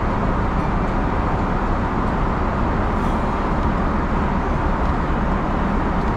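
Steady cabin noise of a Boeing 777-300ER airliner in cruise: an even, unbroken rush of airflow and engine sound heard from inside the passenger cabin.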